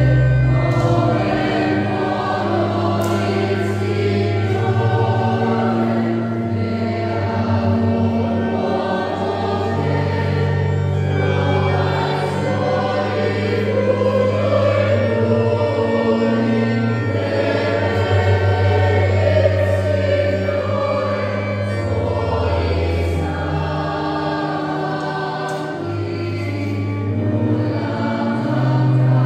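Church choir singing a slow hymn over long-held low accompanying notes.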